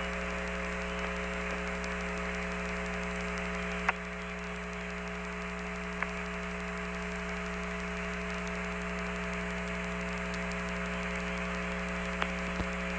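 Steady hiss and hum of an Apollo air-to-ground radio channel, broken by three short clicks.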